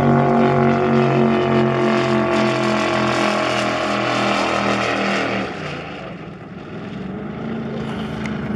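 The twin 650-horsepower naturally aspirated engines of a 38-foot Cigarette Top Gun offshore powerboat running hard as it passes at speed, the engine note dropping slightly in pitch. About five and a half seconds in the engine sound fades, leaving a steady hiss.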